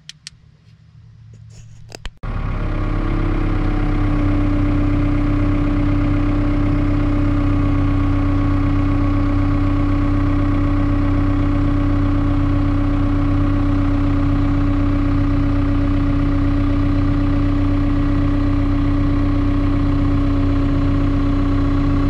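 A Cat 305.5E2 mini excavator's diesel engine and hydraulics running steadily while the upper structure swings on its swing gear, with a steady hum over the engine. It comes in suddenly about two seconds in, after a few faint clicks.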